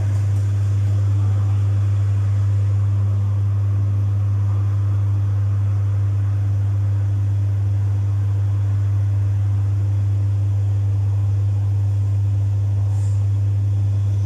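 Domus 8 kg washing machine running with a steady, even low hum from its motor and drum.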